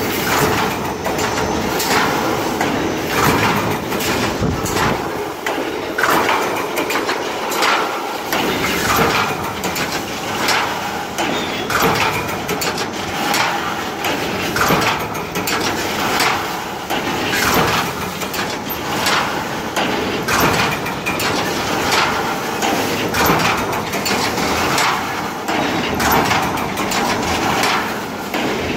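Automatic hinge joint field fence machine running, its mechanism clanking in a steady cycle about once a second over continuous mechanical clatter; each cycle weaves one row of fence mesh, at about 60 rows a minute.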